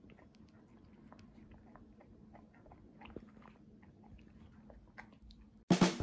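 A standard poodle chewing and crunching small pieces of food off a plate, faint scattered crunches and clicks. Music starts suddenly near the end.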